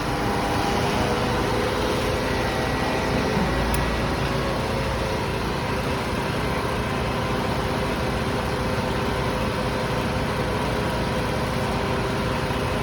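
Engine of heavy tree-removal machinery running steadily at a constant speed.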